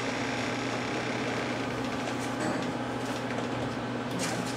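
Steady low hum and hiss of room noise, with a few faint clicks near the end.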